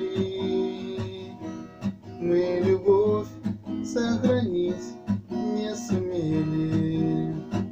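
Acoustic guitar strummed chords, the closing bars of the song after the last sung line.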